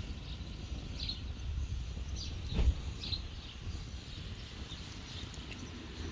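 Outdoor ambience: birds chirping about once a second over a low rumble, with a wood fire burning under a tanjurača disc grill. One louder thump about two and a half seconds in.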